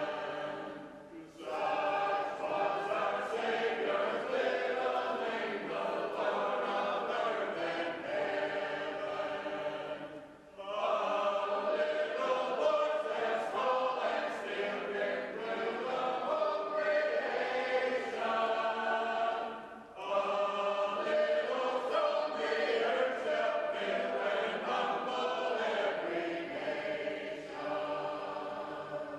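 Unaccompanied shape-note singing: a group of singers sings a hymn together in harmony. There are short breaks between phrases about every nine seconds, and the song ends right at the close.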